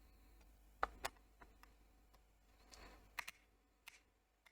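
Near silence broken by a few faint, sharp clicks and a brief soft rustle: small plastic headset parts being handled and fitted during reassembly.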